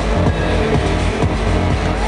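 Loud electronic dance music playing.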